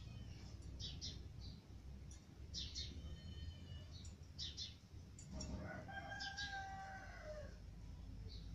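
A rooster crows once, a call of about two seconds that drops in pitch at its end, over faint clicks and rustles of stranded wire being handled.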